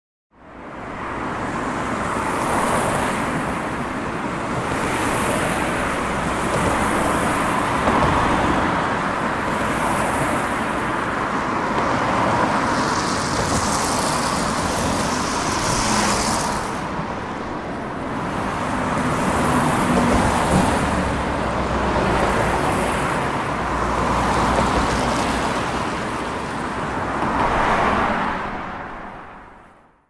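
Highway traffic ambience: a steady stream of vehicles passing, the noise swelling and easing every few seconds as each one goes by. It fades in at the start and fades out near the end.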